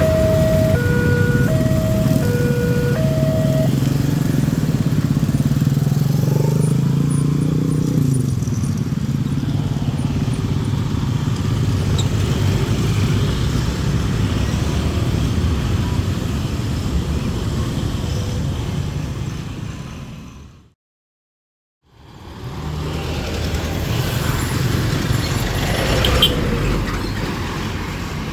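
Level-crossing warning alarm ringing in two alternating tones for the first few seconds while a passing train rumbles. The rumble fades away, then after a short break there is a steady rumble of road traffic.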